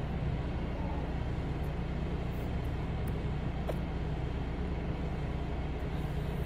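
HydraFacial machine's vacuum pump running steadily with a low hum, drawing suction through the lymphatic drainage handpiece.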